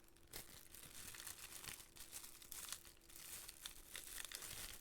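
Plastic sandwich bag crinkling as it is handled, a run of faint irregular crackles.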